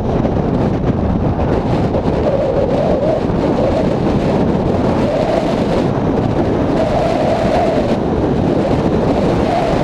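Heavy wind buffeting the microphone over a steady low rumble from a vehicle engine, with a wavering mid-pitched tone that comes and goes.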